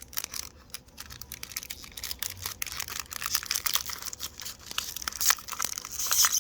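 Foil Pokémon card booster pack wrapper being torn open and crinkled by hand: a run of sharp crackles that gets busier after the first couple of seconds.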